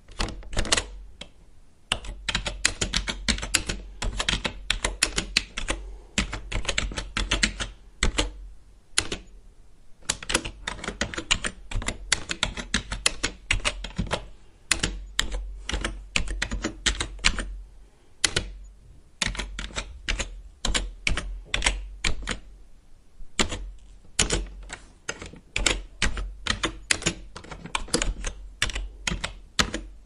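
Woodpecker pecking at wood: runs of rapid, irregular taps, with brief pauses between the runs.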